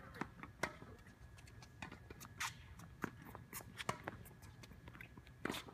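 Tennis balls being struck with rackets and bouncing on a hard court during a feeding drill: an irregular string of sharp pops and knocks, a dozen or so, the loudest about two and a half seconds in and near the end.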